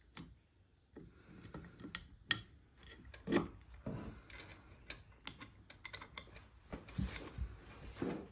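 Hands working 3D-printer frame parts and screws: irregular clicks and taps with some rubbing, and a few duller knocks as parts are lined up and screws are started by hand.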